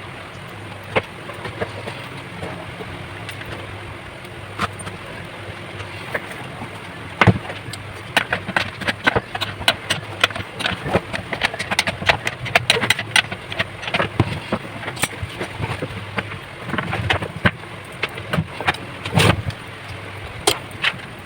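Irregular clicks and knocks of small parts being handled and fitted during hand assembly, densest in the second half, over a steady low hum.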